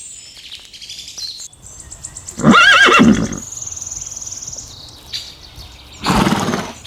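A horse whinnies once, a loud, wavering call of about a second. Faint bird chirps come before it, a thin high trill follows, and a short noisy burst comes near the end.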